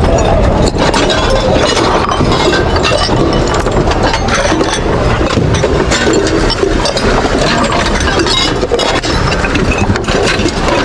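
Ceramic dishes and glassware clinking and knocking as hands rummage through a heap of secondhand crockery, over a steady loud low rumble.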